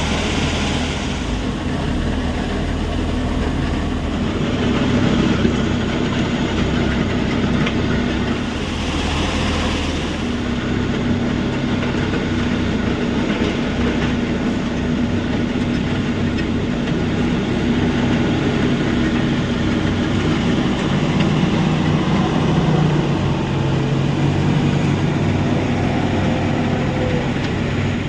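Heavy machinery at a stone crusher plant running steadily: a continuous mechanical rumble with diesel engine tones. The engine note shifts about ten seconds in.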